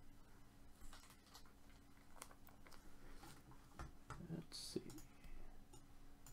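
Faint, scattered computer keyboard clicks, a few keystrokes at a time with pauses between.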